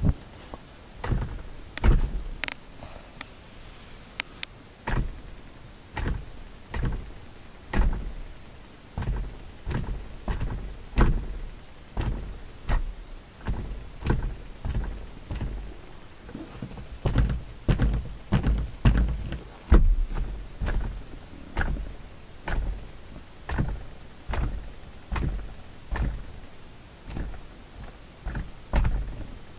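Repeated short knocks and clicks, irregular at about one or two a second, from the left sun visor of a 6th-generation Honda Accord: an abnormal rattle in the visor.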